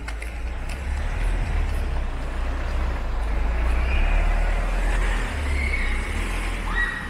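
A motor vehicle passing close by on the street, a low engine rumble with tyre and road noise that builds to its loudest about halfway through and then fades.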